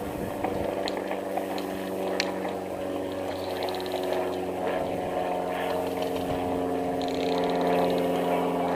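A motor running steadily: an even, unchanging drone that grows slightly louder near the end, with a few faint clicks over it.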